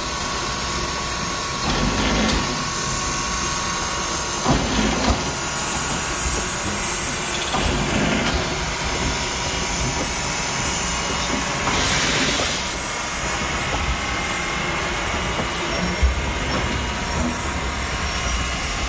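Sierra Railway No. 28, a Baldwin 4-6-0 steam locomotive, hissing steam steadily, with a louder burst of hiss about twelve seconds in.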